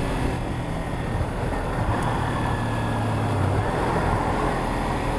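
Kawasaki Ninja 300 parallel-twin engine running amid traffic noise. Its steady tone holds for a while and drops off about three and a half seconds in.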